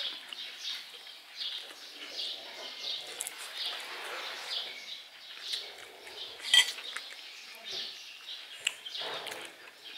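Spoons and forks clinking on china plates during a meal, with one sharp clink about six and a half seconds in as the loudest sound. A bird chirps over and over in the background.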